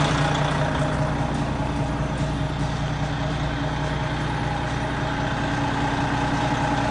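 Heavy vehicle's engine idling steadily with a constant low hum, such as a truck or bus standing in the street.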